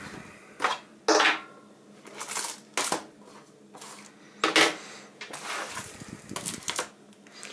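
Plastic Blu-ray cases and a remote control being handled and set down on the top of a Blu-ray player: about half a dozen sharp plastic clacks and knocks at irregular intervals, with rustling and sliding in between.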